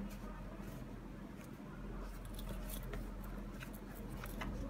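Faint rustling and scattered light clicks of hands handling and turning an Adidas Yeezy Boost 350 V2 sneaker, fingers rubbing and squeezing its knit upper, over a steady low hum.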